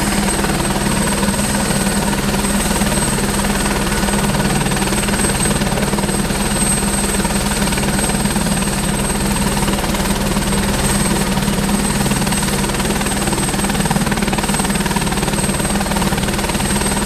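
Light turbine helicopter running on the ground with its rotor turning: a steady high whine over a low, even rumble that holds unchanged throughout.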